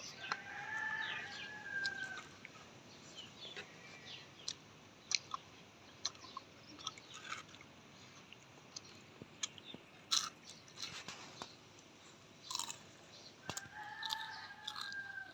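Close-up chewing and crunching, many short sharp clicks as food is bitten and chewed. A rooster crows twice in the background, once near the start and again near the end, each crow an arched call lasting under two seconds.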